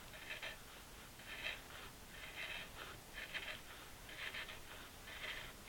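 Bench chisel paring along the edge of a wooden board to cut a rabbet, with six faint short scraping strokes about a second apart, each lifting a curled shaving.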